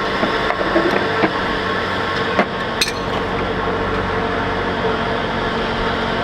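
Metal hand tools clinking and knocking a few times, the sharpest knocks near the middle, over a steady mechanical hum.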